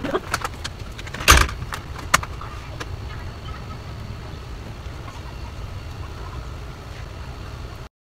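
Clicks and one louder knock about a second in as the carved wooden walking stick and tools are handled, over a steady low rumble. The sound cuts off just before the end.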